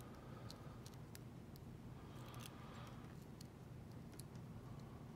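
Faint, scattered ticks of a lock pick working the pins of a Mako 427 lock under a tension wrench, about one every half second to a second, over a low steady hum.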